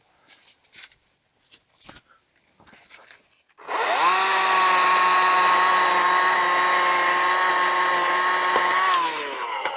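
Battery-powered chainsaw, an Atlas 80V electric, spinning up with a rising whine, running at one steady pitch for about five seconds as it trims the felling cut, then winding down near the end.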